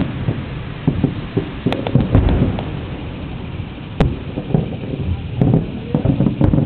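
Aerial fireworks bursting: an irregular run of bangs and crackles, with one sharp, loud bang about four seconds in.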